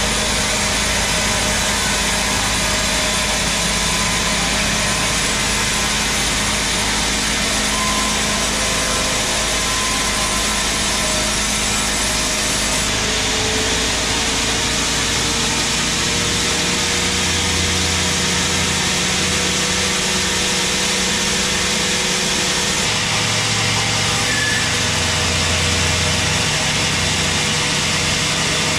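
Sawmill saw running steadily and ripping lengthwise through a large teak log, a continuous cutting noise over the hum of the saw's motor.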